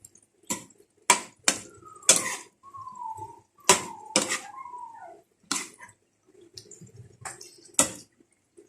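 Spatula knocking and scraping against a pan while the adobo and fried potatoes are stirred, in irregular sharp clanks. A wavering, sliding tone sounds between the clanks for a few seconds around the middle.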